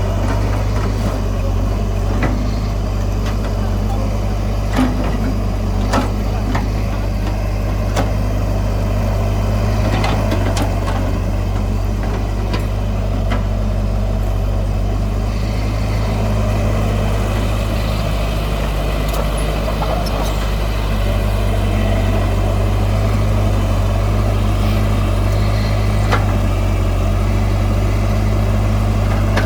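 Heavy diesel engine of earthmoving machinery running steadily, with scattered clicks and knocks over the drone.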